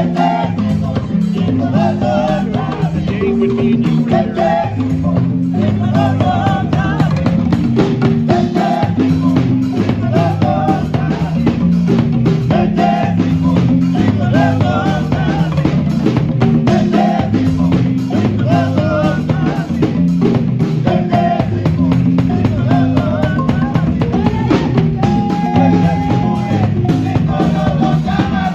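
Marimba ensemble playing an upbeat piece, with low marimba notes repeating a steady pattern and drums keeping the beat.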